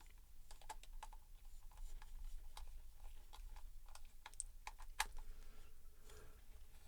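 Light, irregular clicks and taps from handling small plastic headphone parts and screws, with one sharper click about five seconds in.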